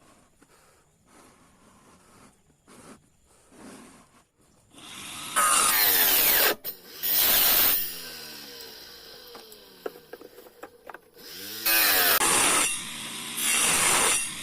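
Homemade mini circular saw driven by a small DC motor: after some light handling, the motor spins up with a rising whine and the blade cuts wood in several loud short passes, the motor winding down with a falling whine between them.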